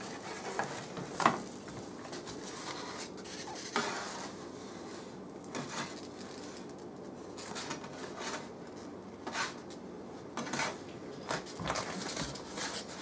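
A spatula scraping and knocking on an electric griddle while grilled cheese sandwiches are lifted off onto paper plates. The scrapes and knocks come irregularly, the sharpest about a second in.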